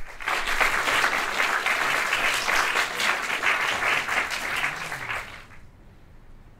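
Audience applauding, cutting in suddenly and fading away about five seconds in.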